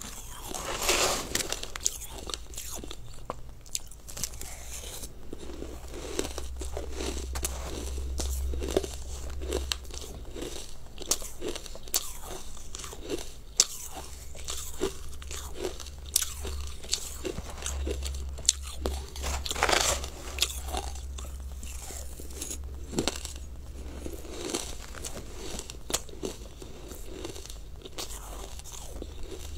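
A person biting and chewing frozen, icy food, with many short crunches all through and louder bursts of crunching about a second in and again around twenty seconds in.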